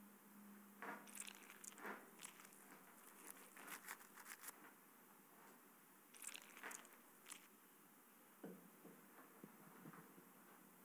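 Faint, irregular rustling and crunching of clothing and shuffling movement, in two clusters about one and six seconds in, then a few soft knocks near the end, over near-silent room tone.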